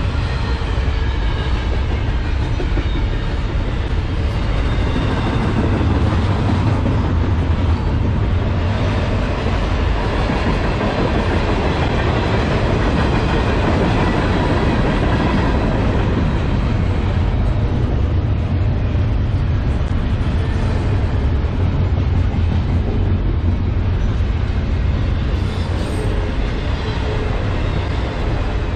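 Norfolk Southern double-stack intermodal freight train's cars rolling past on steel wheels and rails: a loud, steady running noise that is heaviest in the low end.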